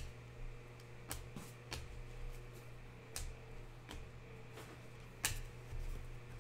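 Irregular light clicks and flicks of Panini Prizm trading cards being handled and flipped one by one, the loudest about five seconds in, over a steady low hum.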